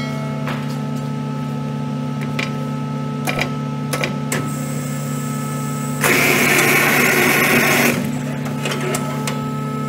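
Scrap-tire processing machine running with a steady motor hum and scattered clicks. About six seconds in comes a loud, hissing rush lasting about two seconds, then the hum carries on.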